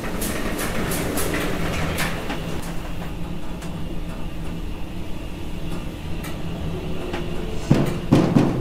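Lift doors sliding open over a low, steady hum, with scattered clicks in the first couple of seconds. A loud cluster of heavy thuds comes about eight seconds in.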